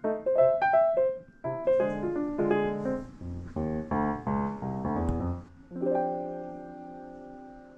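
Background piano music: a quick run of single notes, then fuller chords, ending on a held chord that slowly fades.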